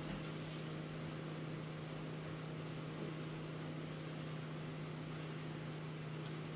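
Steady low electrical-sounding hum with an even background hiss: the recording's room tone and noise floor, with no other events.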